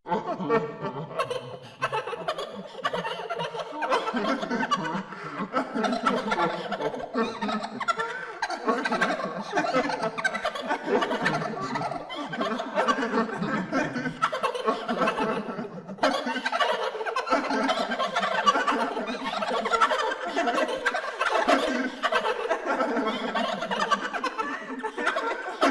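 Crazy horror-effect laughter: a voice laughing on and on in repeated falling runs of 'ha ha ha'.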